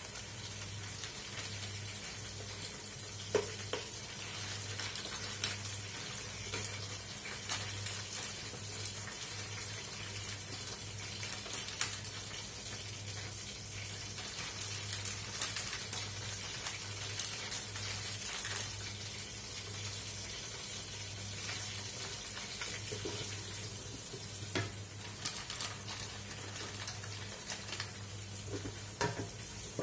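Oil sizzling and crackling in a cooking pot as garlic, shallots and whole spices sauté, over a steady low hum. A plastic packet crinkles now and then.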